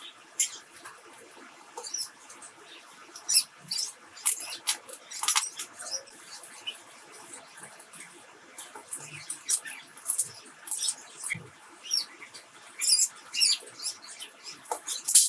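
A toothbrush scrubbing the plastic body shell of a Canon 400D camera in soapy water: irregular, short scratchy brushing strokes, some louder than others, with small wet sounds.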